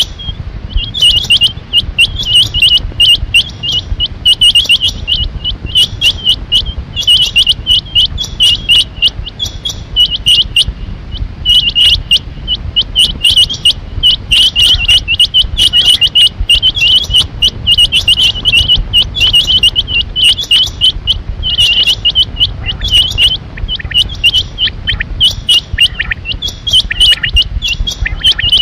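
Rain quail calling: quick clusters of short, high whistled notes, repeated over and over with hardly a pause, over a low steady rumble.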